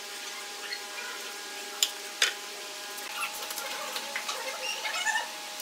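Wood glue being spread along a pine board's edge with a flat wooden stick: scattered small squeaky scrapes, with two sharp knocks about two seconds in.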